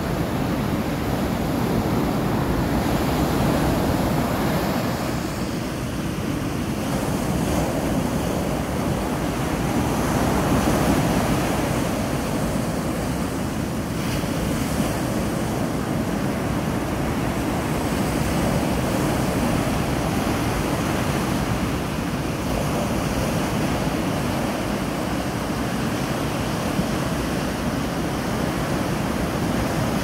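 Ocean surf breaking and washing up a sandy beach, a continuous rush that swells gently as waves come in, with some wind buffeting the microphone.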